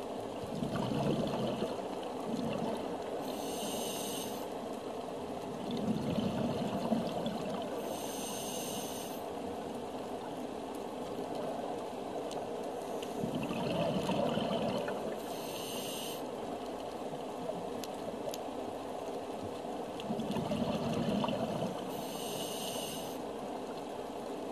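A scuba diver breathing through a regulator underwater: a short high hiss on each inhale alternating with a bubbly rush of exhaled air, about four slow breaths.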